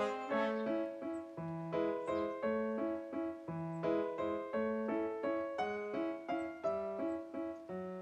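Background music: a keyboard instrument with a piano sound playing an evenly paced melody of short struck notes, about three a second.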